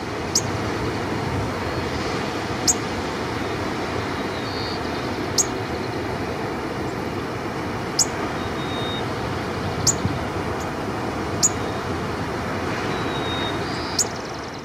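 White-crowned sparrow giving sharp, high call notes, seven in all, about every two seconds, over a steady background hiss.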